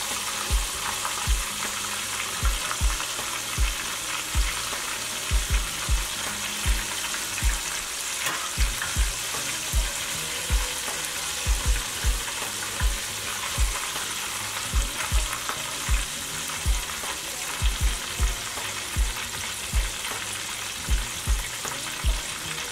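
Chicken thighs deep-frying in a pot of hot vegetable oil: a steady sizzling hiss. The thighs are floating, the sign that they are done. Short low thumps come every half second to a second throughout.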